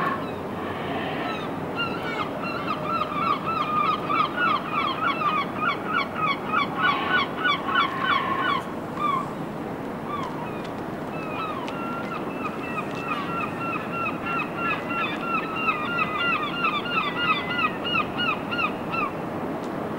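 A bird calling in two long runs of short, hooked, rapidly repeated notes, about five a second, the first from about two seconds in and the second resuming a couple of seconds after it stops.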